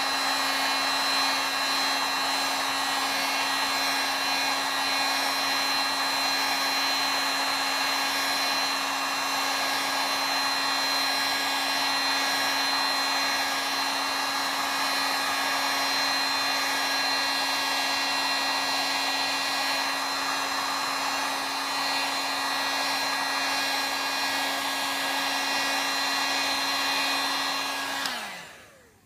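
Heat gun running steadily, a blowing rush of air with a steady motor hum and whine. About a second before the end it is switched off, its pitch sliding down as it winds to a stop.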